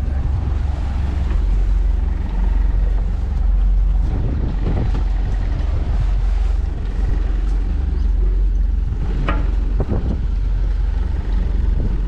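Towboat's engine running at idle alongside, a steady low rumble, with wind buffeting the microphone and a couple of short knocks about nine seconds in.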